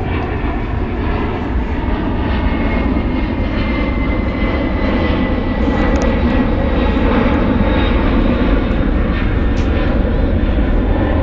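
A loud, steady engine-like drone that grows slowly louder, with a faint high whine that falls slowly in pitch over the first half.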